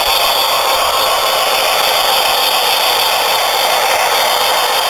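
HO-scale model 2-10-4 Texas steam locomotive and its train running along the track: a steady running noise of small wheels on rail and the locomotive's motor.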